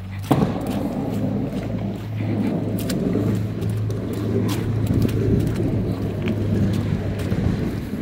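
Blizzard wind buffeting the phone's microphone in a rough, uneven rumble that starts suddenly just after the start, with faint footsteps on a slushy path and a steady low hum underneath.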